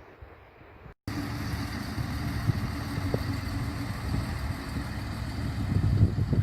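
A train running past at close range: rumble with a steady hum over it, growing louder toward the end. It begins suddenly about a second in, after a quiet stretch.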